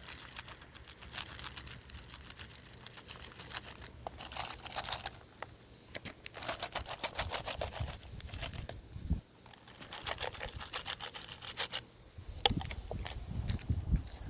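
Stray cats crunching dry cat food, in repeated bursts of rapid crisp crunching with short pauses between them.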